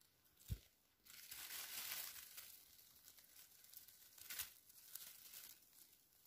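Faint rustling and crinkling of wild bilberry shrubs being brushed through, with a soft knock about half a second in.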